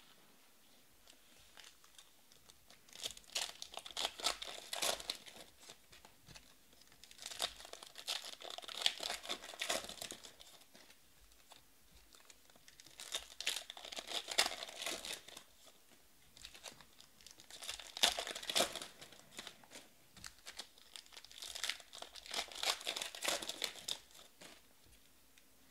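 Trading-card pack wrappers crinkling and tearing as packs are ripped open by hand, in five bursts a few seconds apart.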